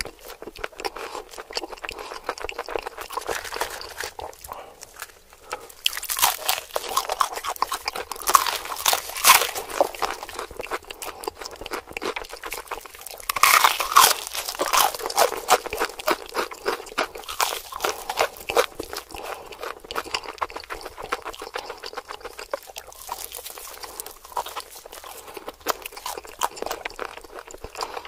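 Close-miked biting and chewing of crispy fried chicken, the crust crunching and crackling in repeated bites. The loudest crunching comes in bursts about six to ten seconds in and again about fourteen seconds in, with steadier chewing between.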